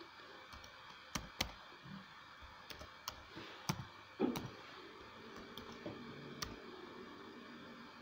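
Faint clicks of computer keyboard keys, struck one at a time at an irregular pace as a short word is typed.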